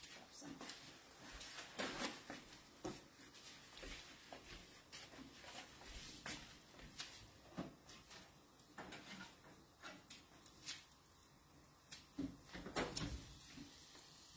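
Scattered light clicks and knocks of kitchen handling, including a utensil working in a frying skillet on an electric stovetop. A few louder clunks near the end come as the oven door is pulled open.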